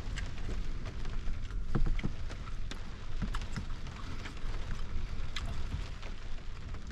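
A metal spoon clicking and scraping now and then in a small stainless steel pot of ramen, over a steady low rumble.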